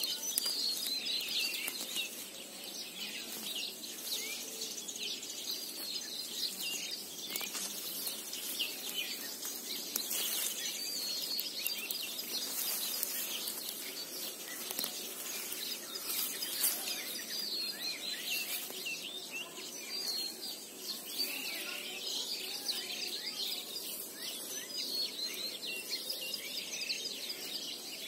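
Small birds chirping and twittering throughout, over the rustling and crackling of a bundle of dry brush moving through tall weeds.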